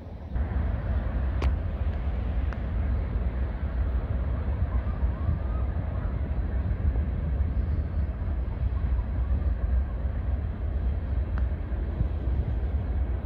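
Herzog ballast train's freight cars rolling past at a distance: a steady low rumble with a few faint clicks.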